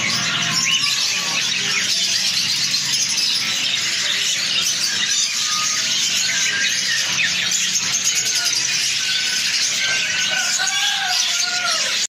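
Dense, continuous chirping and chattering from many caged finches, budgerigars and other small cage birds together, with some higher squealing calls among them.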